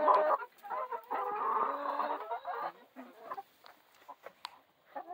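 A flock of hens clucking and calling for about the first three seconds, then dying down, with a few faint clicks near the end.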